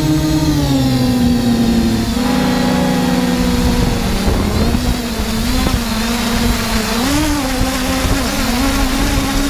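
Force1 F100 Ghost quadcopter's electric motors and propellers whining in flight. The pitch drops about half a second in, then wavers up and down as the motor speeds change, over a steady rushing noise.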